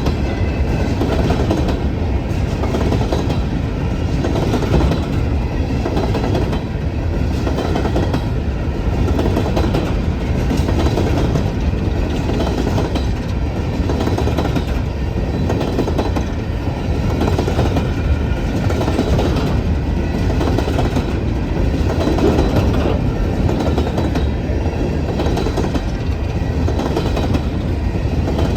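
Empty coal hopper cars of a long freight train rolling past, a steady rumble of wheels on rail with a rhythmic clickety-clack as the wheelsets cross the rail joints.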